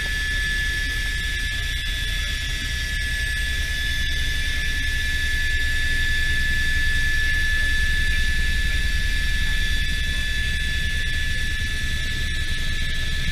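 Helicopter in flight, heard from inside the cabin: a steady high-pitched engine whine over the fast low beat of the rotor blades.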